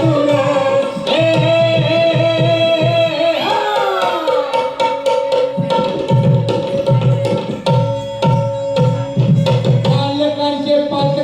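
Lavani folk-song music: a tabla-like hand drum plays a steady rhythm under a held, sustained melody, with a sliding melodic passage about three to four seconds in.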